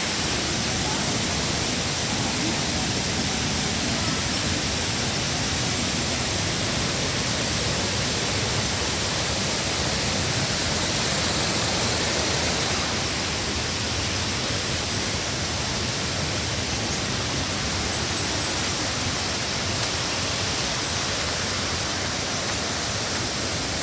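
Waterfall rushing: a loud, steady wash of falling water that does not change.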